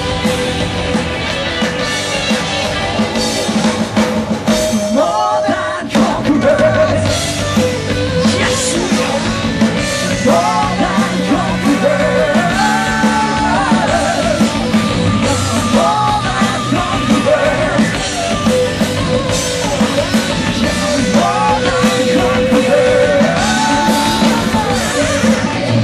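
Rock band playing live: drum kit and loud band music throughout, with a singer coming in over it about five seconds in.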